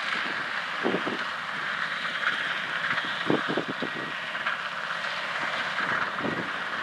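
John Deere 9460R tractor's diesel engine running steadily under load as it pulls a Bunning tri-axle spreader that is throwing out chicken litter, with wind buffeting the microphone in a few short gusts.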